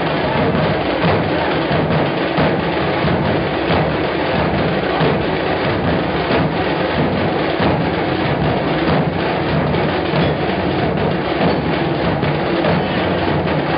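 Loud, continuous drumming, the percussion that accompanies the dancing of a palkhi (palanquin).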